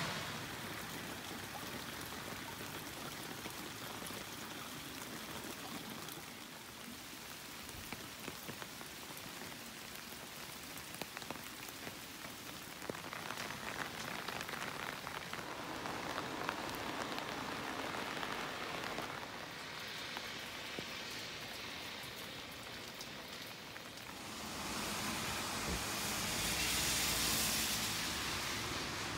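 Steady rain falling on a wet street, an even hiss with scattered drips. The hiss swells louder for a few seconds near the end.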